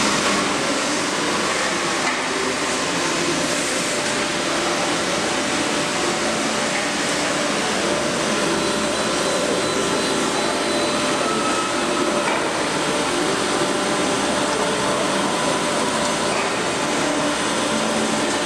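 2001 Soraluce SLP 8000 CNC bed milling machine running under power as its milling head travels along its axis: a steady mechanical hiss and hum with a few faint high, steady whines.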